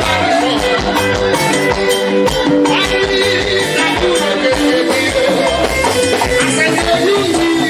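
Live band music: a melody line and guitar over bass, drums and shaken percussion with a steady beat.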